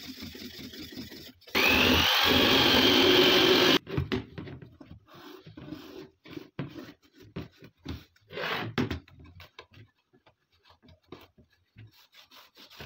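Hand sanding of the rusty steel arm of an AK underfolding stock with a sanding block, a dry scraping rub. About one and a half seconds in it is broken by a loud, steady hiss lasting about two seconds, with a whistle rising at its start. After that come short, irregular rubbing strokes of a cloth wiping the steel.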